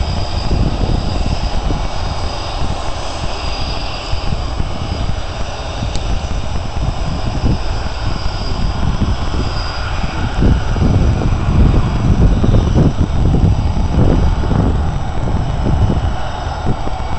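Panavia Tornado's twin RB199 turbofan engines running at taxi power: a steady jet whine with thin high tones over a heavy, uneven low rumble.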